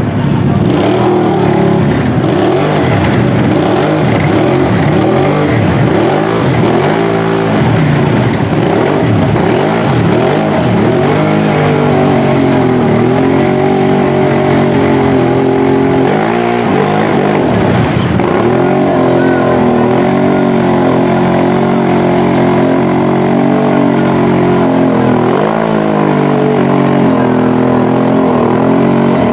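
Monster ATV engine revved hard as its oversized mud tires spin through a deep mud hole. The revs swoop up and down rapidly at first, then are held high and steady with brief dips, the engine under heavy load in the bog.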